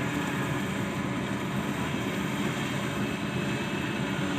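Combine harvester engine running steadily under load while harvesting rice, a continuous mechanical drone with no change in pitch.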